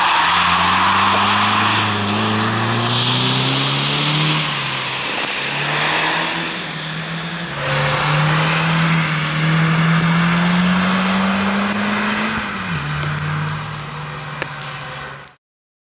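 Peugeot 306 engine revving hard as the car accelerates away, its pitch climbing and stepping down with each upshift. About halfway through, the note climbs again in one long rise, drops sharply, then holds steady until the sound cuts off abruptly.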